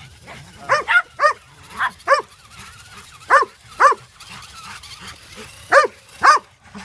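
A small dog, a pug, barking in quick pairs: eight short, sharp barks in four pairs, set off by a remote-control car it is chasing.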